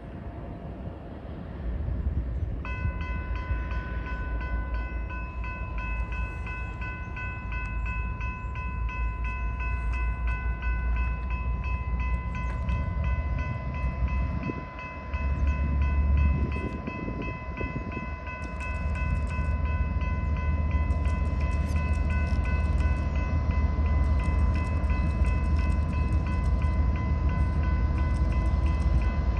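Railroad grade-crossing warning bell ringing in a fast, even rhythm from about three seconds in, over a low rumble as a train draws near.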